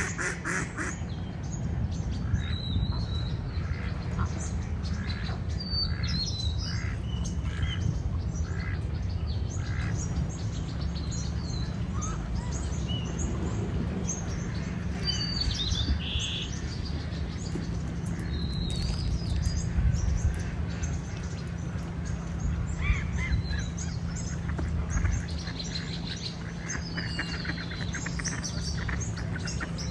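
Several birds chirping and calling, with a run of evenly spaced short calls from about six to ten seconds in, over a steady low rumble.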